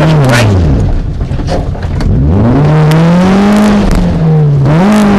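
Rally car's twin-cam engine heard from inside the cabin: the revs fall away about a second in, then climb again and hold high, with a brief drop and pick-up near the end as it changes up a gear.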